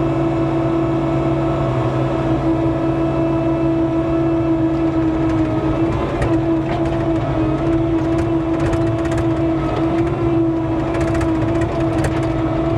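Bobcat skid steer engine running steadily with an even pitch while dragging a log on a chain, with scattered short clicks from about six seconds in.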